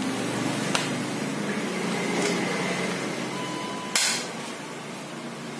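Plastic air filter housing cover of a Honda Mobilio being pressed back into place and clipped shut by hand: a light click about a second in, then a sharp plastic snap about four seconds in, over a steady low hum.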